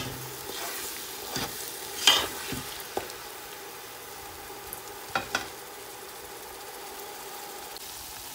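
Ground onion paste sizzling steadily as it fries in hot oil, browning. A spatula scrapes and knocks against the pan several times, loudest at the very start and about two seconds in.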